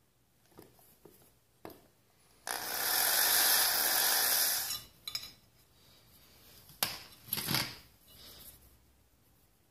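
A power tool runs for about two seconds, starting and stopping abruptly, amid workshop handling sounds. A sharp knock comes near the end.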